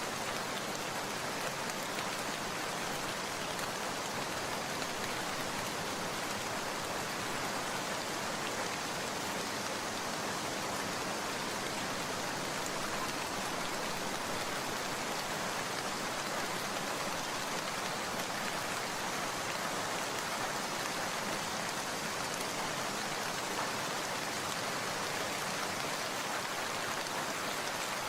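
Steady rain falling, an even hiss of many drops that holds unchanged throughout.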